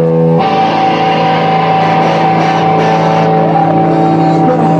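Live rock band playing loud electric guitars over drums and cymbals. A held guitar chord rings alone at first, and the full band comes in about half a second in.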